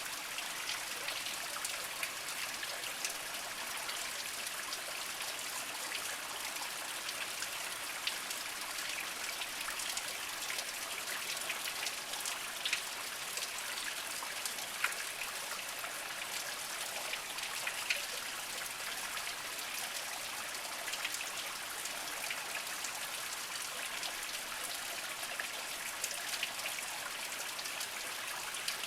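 Small spring-fed stream trickling over mossy rocks, a steady light splashing and dripping of water with many small drop sounds.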